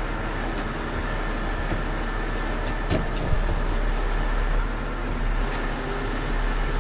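Heavy diesel engine running steadily, with a single sharp knock about three seconds in.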